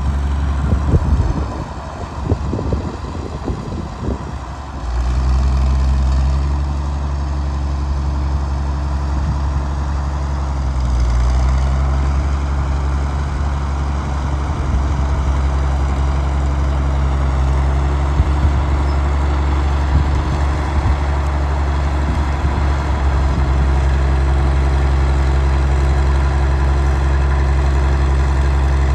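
1952 Caterpillar D6-9U bulldozer's diesel engine running. For the first few seconds the sound is uneven, with low knocking and clatter; about five seconds in it settles into a steady, slightly louder drone that holds to the end.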